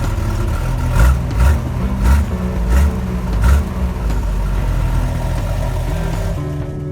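1985 Toyota FJ60 Land Cruiser's 4.2-litre 2F straight-six running rough on full choke just after a cold start, with about five uneven loud pulses in the first few seconds. The owner blames the rough running on a blown-out hose and other faults in the engine bay.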